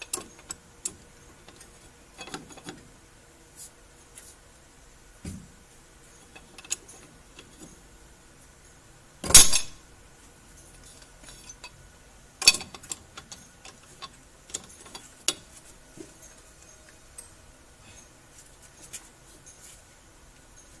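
Scattered metallic clinks of a steel wrench and pipe extension on the nut of a newly fitted ball joint as it is tightened, with a loud metal clank about nine seconds in and a sharper one about three seconds later.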